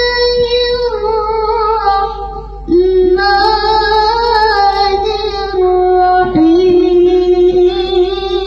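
A female voice singing long, held notes in a melismatic, chant-like melody, sliding slowly from pitch to pitch with brief breaks for breath, over a steady low hum.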